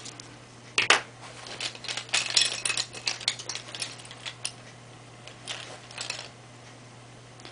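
Light crackling and clicking of a rolled paper flower being handled and pinched with tweezers, in scattered clusters, busiest in the middle.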